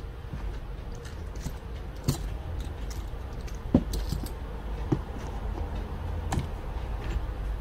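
Small metal and plastic parts of a dismantled brush-cutter carburetor clicking and tapping as they are handled and set down on a towel: a few separate light clicks over a faint steady hum.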